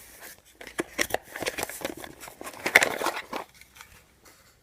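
Rustling and short clicks of a battery charger and its packaging being handled, loudest near three seconds in, then dying away.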